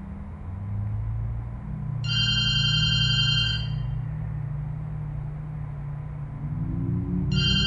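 A high electronic ringing tone sounds twice, about two seconds in for a second and a half and again near the end, over a steady low drone. Rising tones come in near the end.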